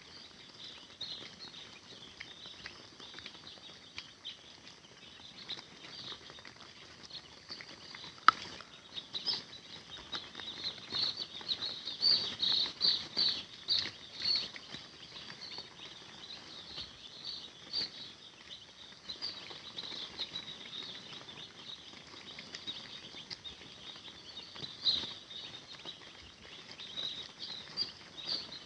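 A group of young chicks peeping: a dense, continuous run of short high-pitched peeps, busiest in the middle, with one sharp click about eight seconds in.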